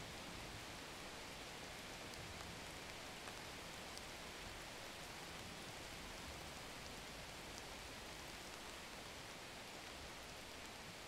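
Faint steady hiss, much like light rain, with a few faint ticks.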